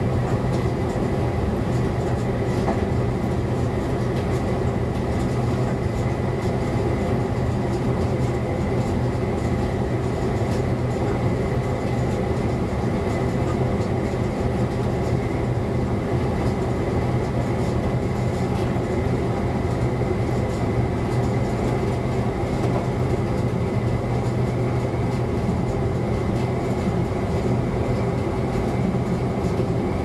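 ČD class 854 diesel railcar running along the line, heard from the driver's cab: a steady low engine drone with wheel and rail noise, and a faint high whine held throughout.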